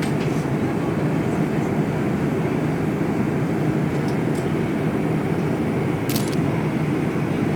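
Steady roar of an Airbus A350-900 airliner in flight, heard from inside the cabin, with one brief click about six seconds in.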